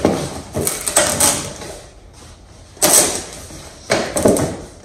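Cardboard furniture box being handled and pulled open: a handful of short scraping, ripping sounds, the loudest about three seconds in.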